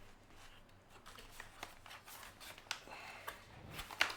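Cardboard keyboard box being opened and handled: faint scrapes and rustles with scattered light clicks and taps.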